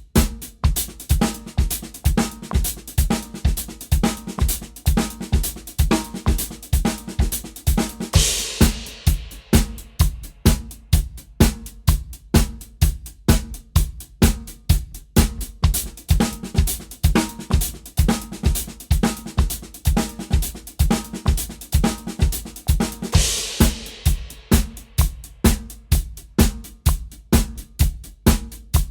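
Drum kit played in a steady groove built on paradiddles in 16th notes, spread across hi-hat, snare and bass drum, with regular bass drum hits. A cymbal crashes twice, about fifteen seconds apart.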